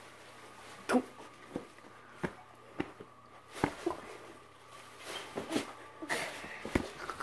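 Bubble wrap being popped by hand: about ten sharp pops, irregularly spaced, with faint rustling of the plastic between them.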